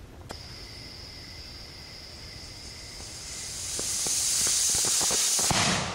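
Ground fountain firework spraying sparks: a hiss that grows louder over a few seconds, with scattered crackles, then cuts off suddenly near the end.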